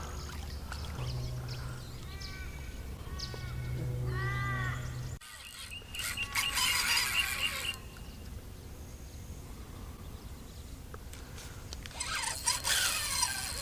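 Birds calling in several bouts: a run of repeated arched notes, then busier chattering a few seconds later and again near the end.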